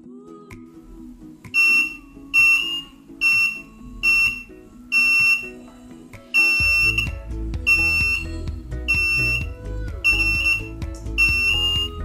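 Buzzer of a homemade laser-beam alarm sounding in repeated high-pitched beeps, about one a second, starting about a second and a half in: the alarm set off because the laser beam onto its LDR sensor is blocked. Background music plays underneath, with a heavy bass beat joining about six and a half seconds in.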